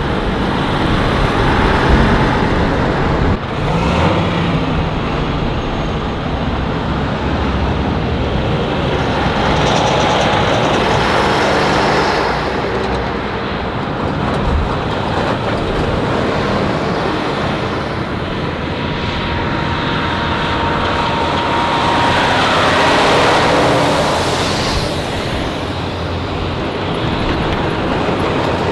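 Convoy of Tatra 815 eight-wheeled fire-brigade trucks driving past, diesel engines and tyres swelling as each truck passes, with a steady whine about two-thirds through.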